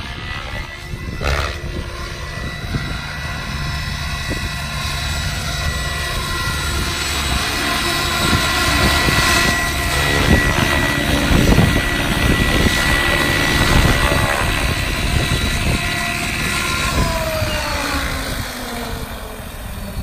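Electric RC helicopter (a Goblin Kraken) flying with a steady high whine from its motor and rotor. It gets louder as it comes in to hover and land. Over the last few seconds the whine falls in pitch as the rotor spools down on the ground.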